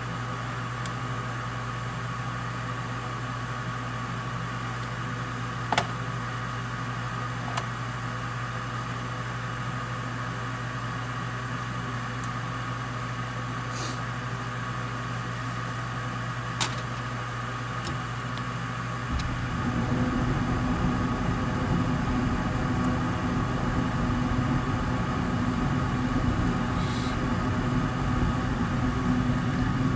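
York gas furnace running on a test call for heat, its newly replaced draft inducer motor giving a steady hum with a few light clicks. About two-thirds of the way through, a louder, lower rumble suddenly joins and holds as the furnace's next stage comes on.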